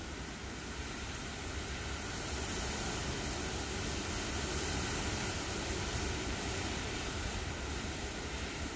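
Approaching thunderstorm: a steady rushing rumble that swells about two seconds in and eases slightly near the end.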